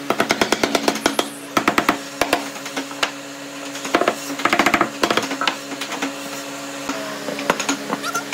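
A hammer rapping quickly on stacked pine boards, tapping them into line, in three spells of rapid knocks at about ten a second, the last near the middle, with a few scattered knocks after.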